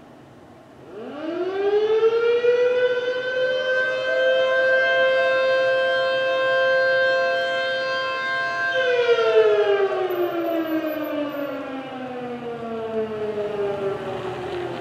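Federal Signal Model 2-240 outdoor warning siren sounding a short alert blast as its daily time signal. It winds up fast about a second in and holds a steady two-note pitch for about eight seconds. It then winds down slowly and is still falling at the end.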